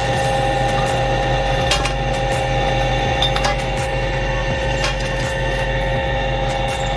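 Borewell drilling machine's engine running steadily with a constant whine over a low hum, with a few sharp metal clinks.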